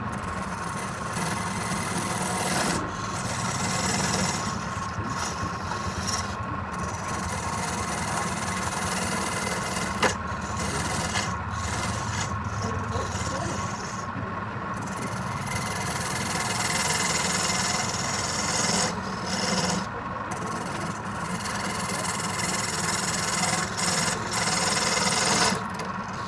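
Woodworking lathe running, with a turning tool cutting and rubbing on the spinning wood over the steady hum of the motor.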